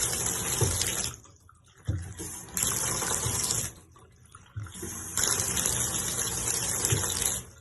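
Shower water rushing on and cutting off three times as a faulty shower valve is turned on and off. The valve handle still turns all the way around.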